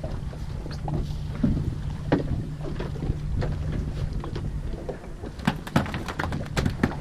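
A boat's engine running steadily at low speed, with scattered knocks and clicks from on board that turn into a quick run of sharp knocks near the end.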